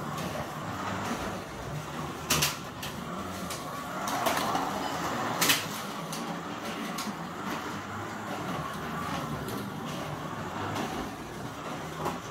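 Carrera Digital 132 slot car running around the plastic track: a steady whirring rattle of its small electric motor, with sharp clacks about two and five and a half seconds in.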